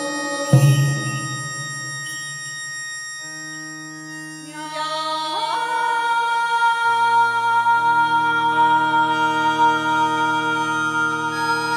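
Live Japanese ensemble music: a keyboard holds a steady drone chord, with a single taiko drum stroke about half a second in. From about five seconds a woman's voice slides up into a long high held note.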